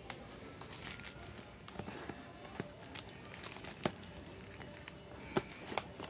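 Plastic courier pouch and packing tape crinkling as hands handle and work at the parcel's edge, with a few sharp clicks and taps, the loudest in the second half.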